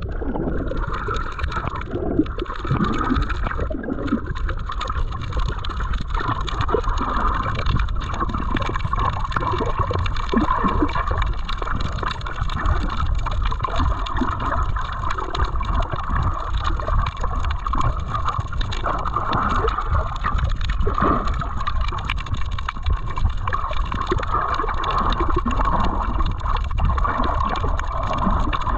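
Underwater water noise picked up by a submerged action camera: a steady gurgling, sloshing wash of water with low rumble and scattered small ticks.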